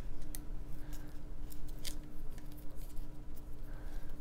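Scissors snipping through a plastic blister pack and its cardboard backing: several short, sharp cuts at irregular intervals.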